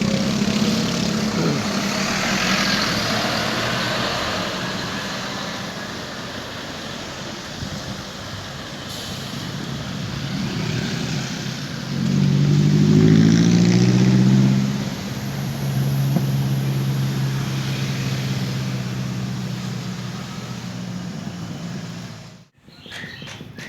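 Heavy vehicle running on the road, with a loud multi-tone air-horn blast about halfway through that lasts roughly three seconds. Near the end the sound cuts off abruptly and is followed by quick clicks.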